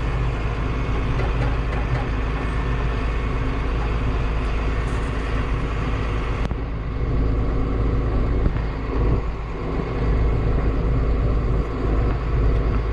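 Combine harvester running steadily under load while harvesting soybeans, heard from inside the cab as a continuous deep rumble.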